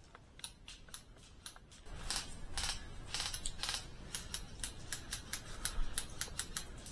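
Airsoft gunfire: sharp irregular clicks of replica shots and BBs striking, coming several a second and growing denser about halfway through, over a low rumble of handling and movement.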